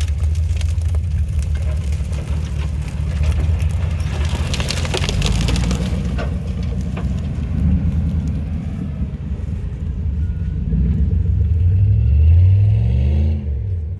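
Hummer H2's 6.0-litre V8 running hard off-road, with rattling noise over roughly the first six seconds. About twelve seconds in, the engine revs up and then falls back.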